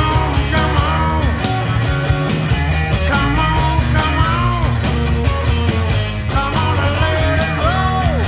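Rock music with no singing, lead lines bending up and down over a steady low beat.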